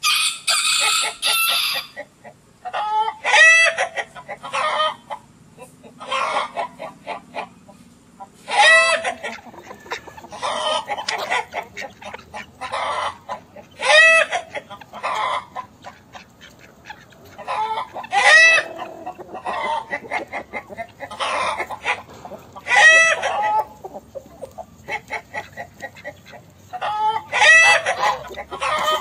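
Chickens clucking: a loud call every few seconds with softer clucks in between, and a harsh, noisy burst in the first couple of seconds.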